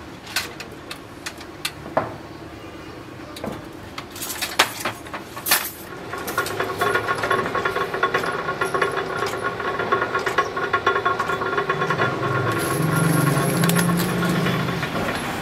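Sharp metal clanks as steel wires are worked on a hand-operated bending jig. After about six seconds they give way to a steady, fast metallic rattle of workshop machinery, with a low hum joining near the end.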